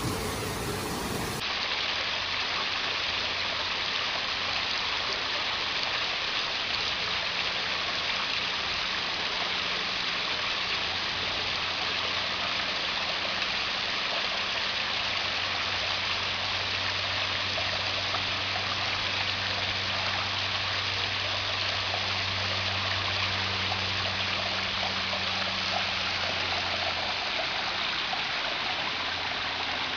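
Water pouring and splashing steadily down an ornamental garden waterfall, with a faint low hum underneath.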